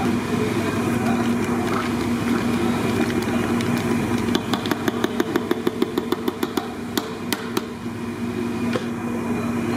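A plastic squeeze bottle squirting thick green sauce sputters in a quick run of sharp pops for about three seconds, starting about four seconds in. Under it, a steady machine hum with a constant low tone.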